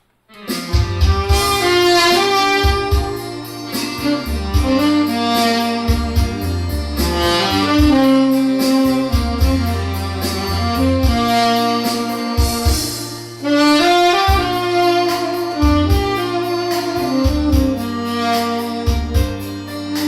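Tenor saxophone with a stainless steel mouthpiece, played dry without added effects, carrying a melody of sustained, sliding notes over a backing track with bass and drums.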